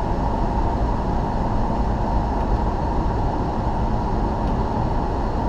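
Steady cabin noise inside the flight deck of a Bombardier Global Express business jet on final approach: an even rush of airflow and engine noise.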